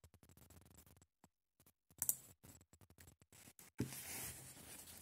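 Faint clicking of a computer mouse, with a sharper click about two seconds in, then a soft steady hiss near the end.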